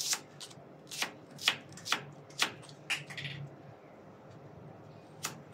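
Kitchen knife slicing shallots on a plastic cutting board: sharp taps of the blade striking the board, about two a second for the first three seconds, then a pause and one more tap near the end.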